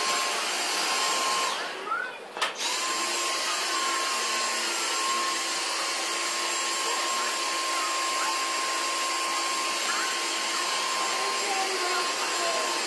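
Dyson DC59 cordless stick vacuum running with a steady suction hiss and high motor whine; about two seconds in it cuts out briefly with a click as the trigger is released, then starts up again and runs steadily.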